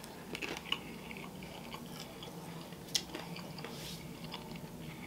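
A person chewing a mouthful of potato skin close to the microphone: quiet, wet mouth sounds with scattered small clicks, and one sharper click about three seconds in.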